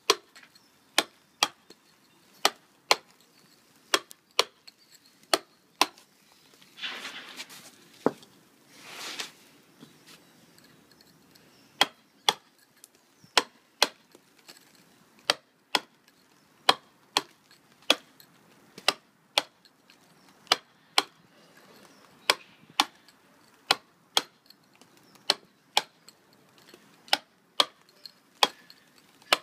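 Hammer striking a steel mason's tool against sandstone, hand-dressing the face of a quoin to a stugged, tooled finish: sharp single knocks about two a second in an uneven rhythm. Near the first third the striking pauses, broken by two brief hissing noises.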